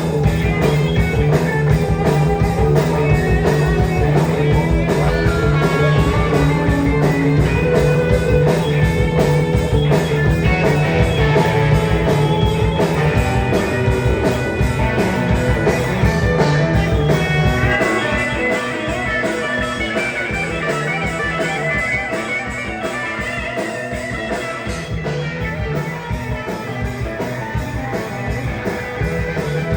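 Live rock band playing instrumental music led by electric guitar. About two-thirds of the way through, the low end falls away and it gets quieter, leaving mainly the guitar line, before the low end comes back near the end.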